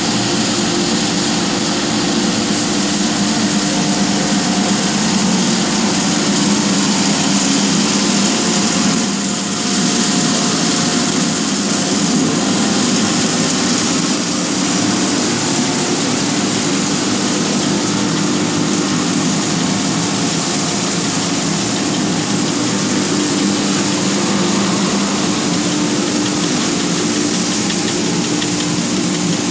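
Puffed rice (muri) making machine running: its belt-driven drum and pulleys turning with a loud, steady mechanical noise and a low hum that holds unchanged.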